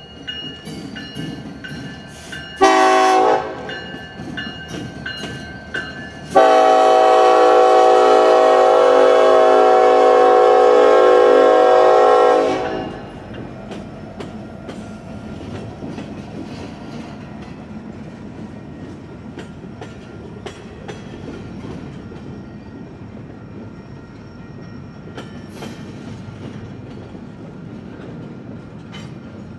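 Union Pacific freight train passing: the lead locomotive's horn gives a short blast about three seconds in, then a long blast of about six seconds. Then the freight cars roll by steadily, wheels clicking over the rail joints.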